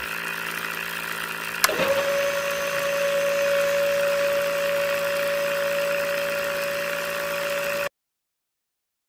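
Small DC motor switched on with a click, about two seconds in, then running with a steady whine over a hiss. The sound cuts off abruptly near the end.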